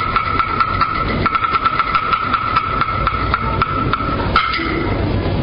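Chinese opera band interlude: a wooden percussion instrument beats a quick run of sharp clicks, about four or five a second, under one high note held steadily by an accompanying instrument. The note stops about four seconds in.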